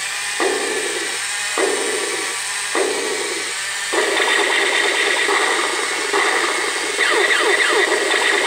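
Battery-powered toy robot's small electric motor and plastic gearbox running, pulsing about once a second, then becoming steadier and higher-pitched about four seconds in. The toy has a broken gear in its leg mechanism.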